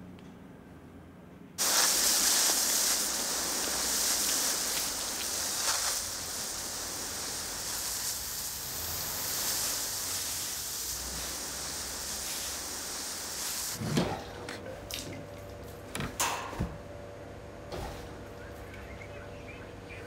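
Water gushing hard, an even hiss that starts abruptly about a second and a half in and stops about fourteen seconds in. A few sharp knocks and a faint steady hum follow.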